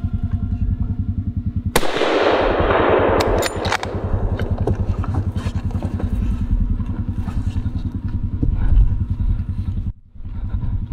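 A single hunting rifle shot about two seconds in, followed by a long fading echo through the forest, over a steady low pulsing rumble.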